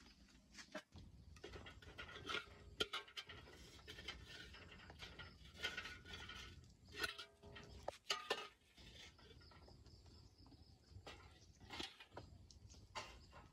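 A metal wok being set on a wood-fired stove and handled, with scattered clinks and knocks of metal on metal over a steady low rumble.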